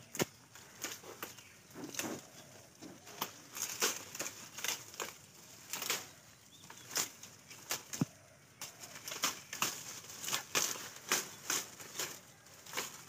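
Tea shoots being snapped off the bushes by hand, with the leaves rustling: an irregular run of short, sharp snaps, several a second.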